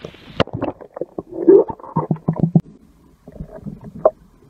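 Muffled underwater sound of stream water sloshing and gurgling around a camera as it is dipped below the surface. The open-air hiss cuts off as it goes under, followed by a quick run of knocks and bubbly gurgles that thin out after about three seconds.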